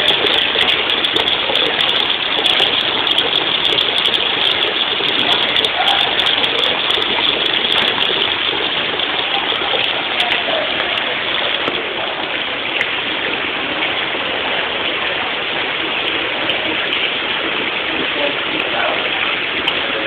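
Steady splashing of a stream of water pouring from a pipe outlet into a tub of water.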